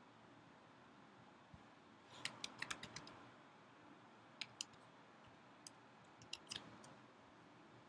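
Typing on a laptop keyboard: a quick run of about six soft keystrokes about two seconds in, a pair near the middle and a few more near the end, over faint room tone.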